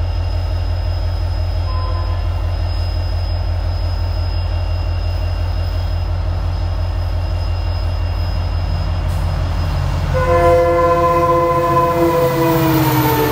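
An Indian Railways diesel locomotive hauling a passenger express approaches with a steady low rumble. About ten seconds in it sounds its multi-note horn in one long blast, and the pitch drops near the end as the locomotive passes close by.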